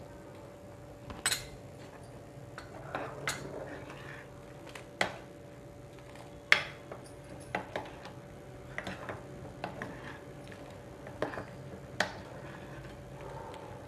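Steel ladle stirring curry gravy in a frying pan, clinking against the pan's side and bottom at irregular moments a second or two apart, over a faint steady hum.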